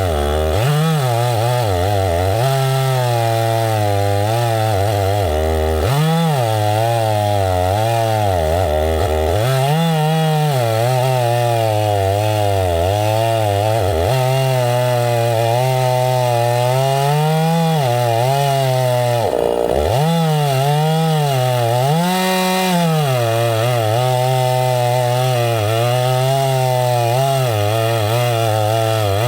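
Chainsaw engine running without a break while cutting wood, its pitch rising and falling as the chain takes and sheds load, with one brief sharp drop in speed about twenty seconds in.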